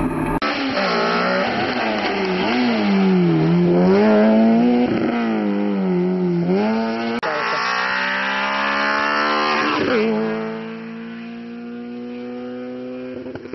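MG hatchback rally car's engine revving hard, its pitch climbing and dropping several times with gear changes and lifts through bends. In the second half it pulls up through the revs in one long climb, then runs on more quietly as the car gets farther away.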